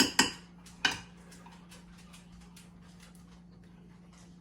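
Utensil clinking against a dish as a cake is iced: two sharp clinks in the first second, then faint light ticking over a steady low hum.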